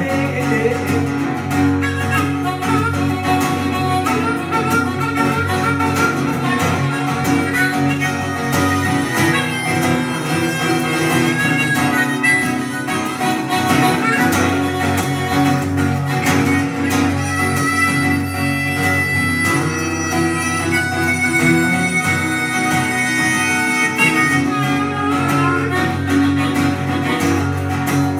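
Live acoustic guitar music in an instrumental break between sung verses: steady strumming under a sustained, wavering lead melody line.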